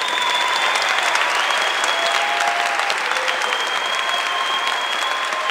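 A crowd applauding steadily, with a few thin, steady whistle-like tones over the clapping.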